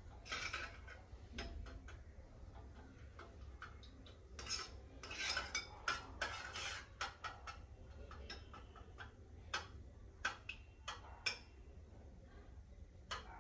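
Metal spoon clinking and scraping against a small steel bowl while stirring desi ghee as it melts over the stove. The taps are light and irregular, busiest in the middle.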